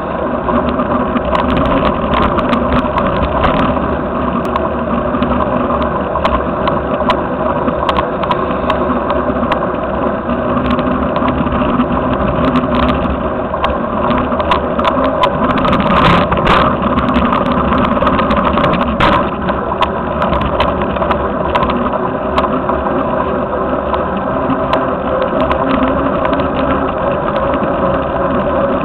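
Steady riding noise from a handlebar-mounted ATC2K action camera moving along a road: a constant rumble of wind and road, with frequent small rattling clicks from the mount shaking.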